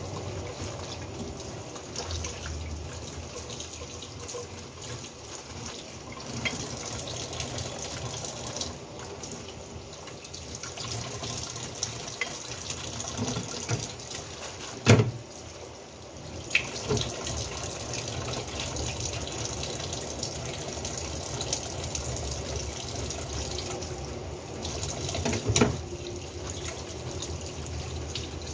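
Tap water running into a stainless-steel kitchen sink and splashing over fish as they are rinsed and scrubbed by hand. A few sharp knocks come through, the loudest about halfway through and another near the end.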